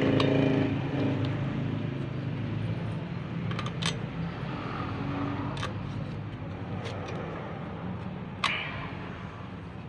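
A steady low engine-like hum that slowly fades, with a few sharp metallic clicks as a socket extension works the through-bolts of a car alternator's housing.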